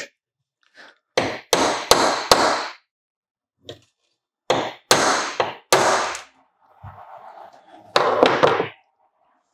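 A hammer striking a pin punch to drive the retaining pin out of an RC car's hydraulic brake master cylinder. About eight sharp blows come in three groups: four quick ones, then three, then one more near the end.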